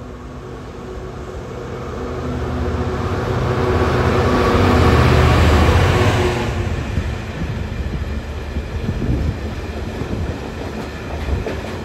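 Diesel-hauled container freight train passing. The locomotive's engine grows steadily louder as it approaches and peaks as it passes just past halfway, then drops off suddenly. After that come the rattle and irregular clicking of the wagons' wheels over the rail joints.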